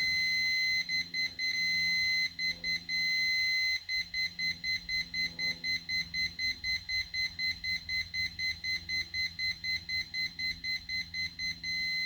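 Multimeter continuity beeper: a steady high tone that keeps cutting out and back in, much of the time chopped into rapid beeps about three a second, as the mouse cable is flexed. The dropouts are the sign of an intermittent break in the cable, which the owner takes for two broken wires lying very close together.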